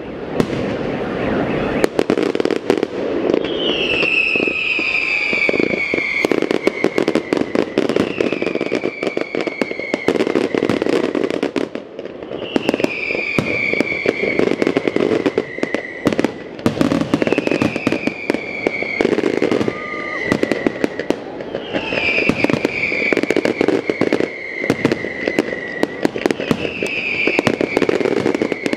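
Aerial fireworks going off in quick succession, a dense run of bangs and crackles, with a falling whistle about every four to five seconds.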